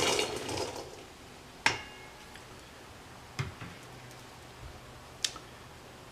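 Rinsed white kidney beans being tipped into a cooking pot: a soft wet slide in the first second, then a few light separate clicks and clinks, one with a brief metallic ring.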